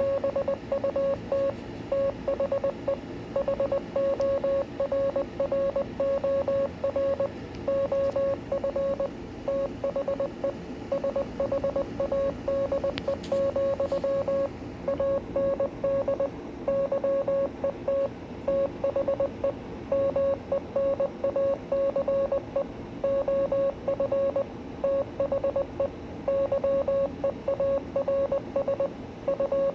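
Morse code sent by hand as a single mid-pitched beep keyed on and off in short dots and longer dashes, spelling out the poem "Invictus". A steady low background hiss and hum sits under the tone.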